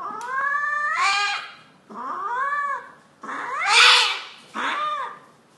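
A domestic cat yowling four times in long, drawn-out calls, the third the loudest, as it is held down against its will.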